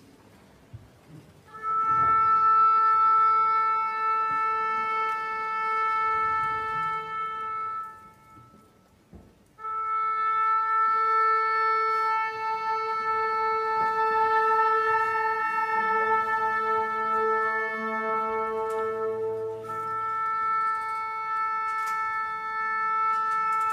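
Symphony orchestra holding one long sustained note on a wind instrument, which stops for about a second and a half and then returns. In the second half, other instruments sound lower and higher notes under and around it, as when an orchestra tunes.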